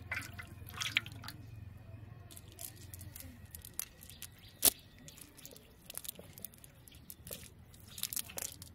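A wet cast net with its weights being handled and picked through by hand: scattered small wet clicks, squishes and drips, with one sharp knock about halfway through.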